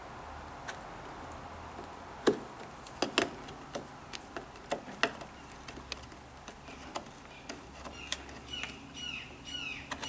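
Wood chisel paring into the edge of a wooden door to deepen the recess for a latch plate: irregular sharp clicks and scrapes. Near the end a bird calls in quick repeated descending chirps.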